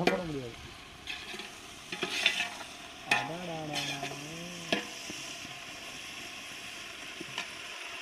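Onions, tomatoes and spices frying in groundnut oil in a steel pot over a wood fire, sizzling while a ladle stirs them; the sizzle settles into a steady hiss about halfway through. A person's voice sounds briefly near the middle.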